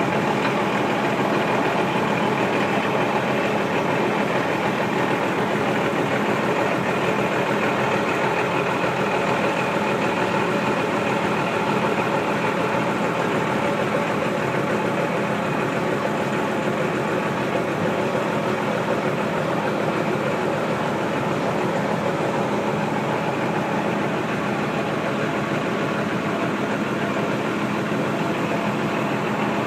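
Heavy diesel engine of construction machinery running steadily at an unchanging pitch, like an excavator or truck idling.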